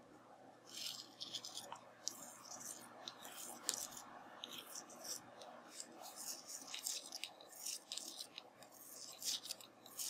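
Faint, irregular rustling and light scratching of yarn drawn over a metal knitting needle as stitches are cast on by hand, with a few small ticks of the needle.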